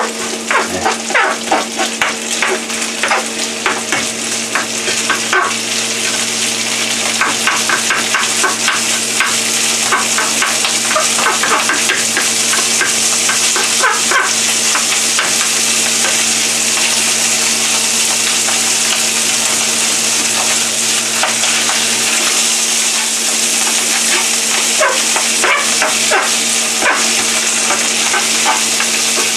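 Cold, hard cooked rice frying in oil in a frying pan, sizzling steadily while a spatula scrapes and taps against the pan to break the clumps apart. The tapping is busy through roughly the first half and thins out later, leaving mostly the sizzle.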